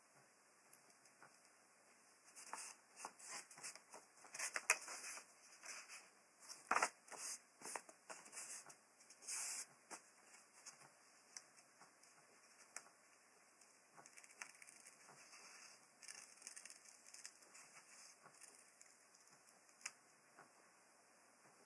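Faint, quick snips of small pointed scissors cutting white paper, coming thick and fast from about two to ten seconds in, then sparser.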